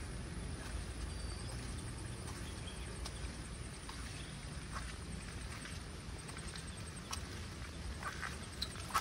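Footsteps on a wet path, heard as scattered irregular clicks over a steady low rumble, with a couple of short bird chirps and a faint high pulsing trill.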